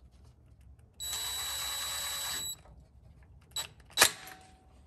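A DeWalt cordless driver runs with a steady whine for about a second and a half, driving the small Phillips rotor-retaining screw back into a brake rotor. Two short clicks follow near the end.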